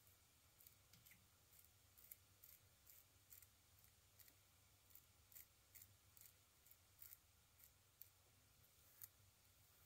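Double-edge safety razor scraping stubble off through shaving lather: faint short strokes, about two or three a second.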